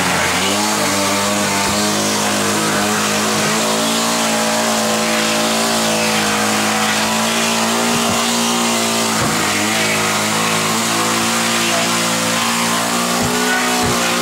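Petrol chainsaw running at full throttle as its bar cuts through wooden floorboards. The engine note dips briefly at the start, then holds high and steady.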